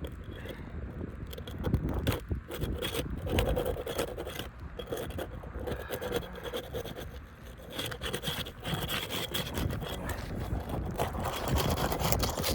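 Old laminated asphalt roof shingles being pried up row by row: irregular scraping and crackling as they are worked loose, with many small clicks. The shingles are aged and brittle, and are being lifted gently to avoid tearing them.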